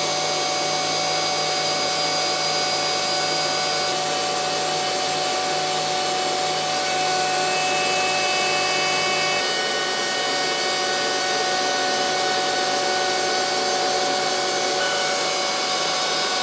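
DeWalt router on an X-Carve CNC running at speed while cutting a shallow outline in plywood, with the dust extractor drawing through the bristle dust boot: a steady rushing noise with several high, even whining tones. The low part of the sound shifts about nine seconds in.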